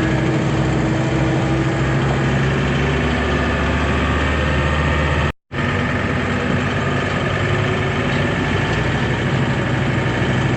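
Heavy diesel farm machinery engine running steadily, with a brief sudden dropout to silence about five seconds in before the same engine sound resumes.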